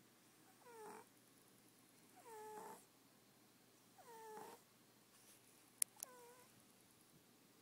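A sleeping cat snoring: four short, high-pitched whistling snores about every one and a half to two seconds, each dipping in pitch as it starts. Two sharp clicks come close together a little under six seconds in.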